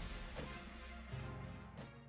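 Background music with sustained bass notes and a couple of percussive hits, slowly getting quieter.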